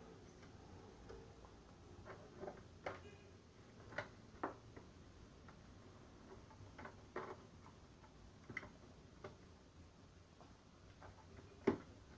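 Scattered, irregular faint clicks and taps of hands handling a plastic desktop UPS and the cable plugs at its back, with a sharper click near the end.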